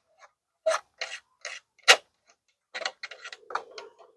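Light clicks and knocks from hands handling the Powerwinch's plastic top winch cover while taking out its toggle switch. There are four spaced about half a second apart, then a quicker cluster near the end.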